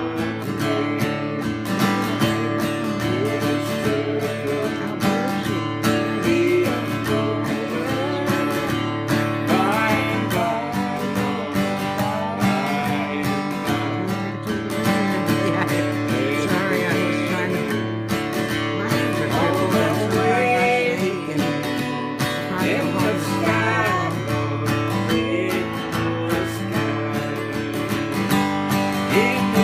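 Acoustic guitar playing a country-style instrumental, with a steady run of plucked and strummed notes.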